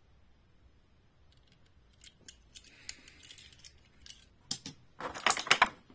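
Small diecast toy cars clicking and clattering against a tabletop and each other as they are set down and picked up: a few faint clicks about two seconds in, then a quick run of sharper clicks near the end.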